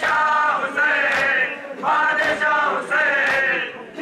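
A crowd of men chanting a nauha, a mourning lament for Hussain, in unison, in short repeated melodic phrases of about a second each. A sharp slap lands about once a second in time with the chant, the hand strikes of chest-beating (matam).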